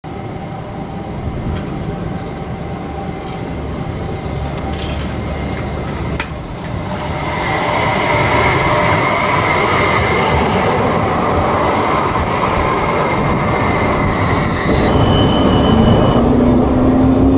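Passenger train running on rails, growing louder about seven seconds in, with a steady high wheel squeal. A brief high tone sounds near the end.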